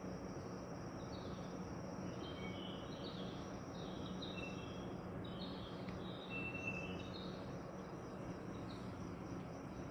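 Birds calling: many short, high chirps and whistled notes, scattered and overlapping, over a steady background hiss and low hum.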